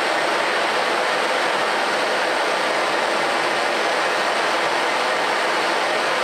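Handheld gas blowtorch burning with a steady hiss, its flame heating a copper crush washer to anneal it.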